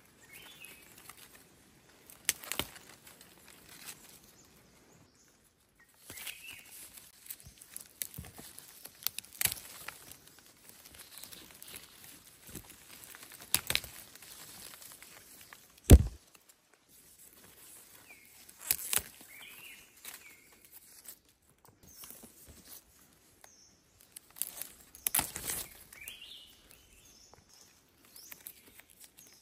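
Hands rustling and crackling through stiff, long leaves while picking young shoots, with several sharp snaps, the loudest about halfway through. Birds chirp faintly now and then.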